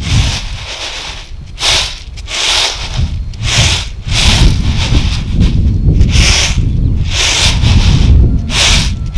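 Grain being shaken and tossed in a flat winnowing basket: a rhythmic swishing rush about once a second, over a low rumble.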